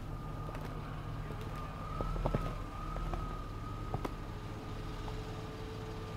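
A steady high tone, wavering slightly in pitch, with a second lower tone joining about five seconds in. Scattered sharp ticks and cracks sound over it.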